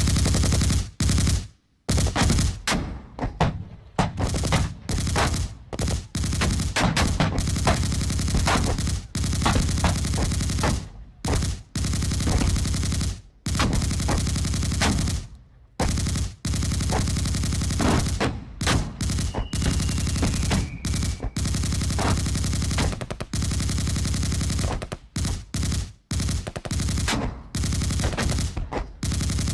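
Machine gun firing in long rapid bursts, broken by short pauses.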